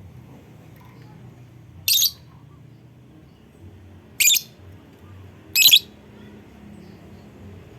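Lovebird giving three short, shrill calls, a couple of seconds apart and each lasting a fraction of a second. This is a lure call meant to set other lovebirds calling.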